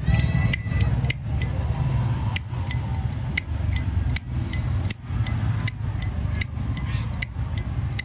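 Chrome Zippo lighter's hinged lid being snapped open and shut over and over, a crisp metallic click with a short ring about two to three times a second, over a steady low rumble.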